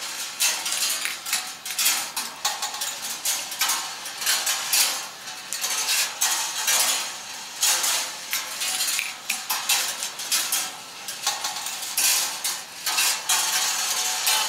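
Balls rolling along the steel-wire tracks of a kinetic rolling-ball sculpture, a continuous metallic rattle full of clicks and clinks as they run the rails and strike metal parts.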